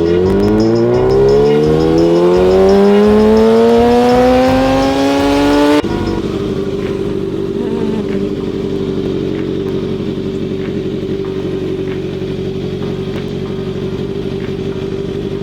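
Kawasaki ZX-6R inline-four motorcycle engine accelerating away, its pitch rising steadily for about six seconds, then dropping suddenly to a steady tone that holds for the rest.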